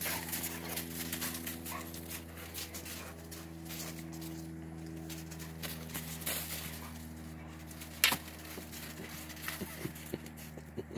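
Dogs scuffling and pouncing in snow, with a few short sharp crunches or knocks, the loudest about eight seconds in, over a steady low hum.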